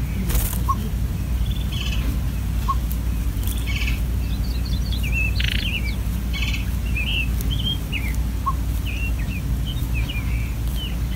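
Many short, high chirps and a few buzzy, pulsing calls, repeated throughout over a steady low rumble: greater roadrunner nestlings begging at the nest while being fed.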